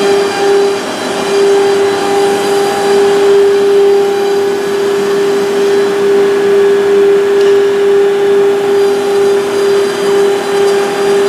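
Woodworking machine running steadily: a constant whine over an even rushing noise.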